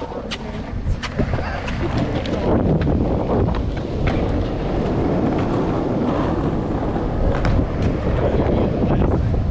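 Skateboard wheels rolling over street pavement: a steady rumble that grows louder about two seconds in, with scattered sharp clicks, and wind buffeting the microphone.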